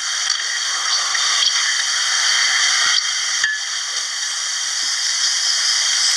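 Steady loud hiss of background noise in a low-quality recording, with no speech.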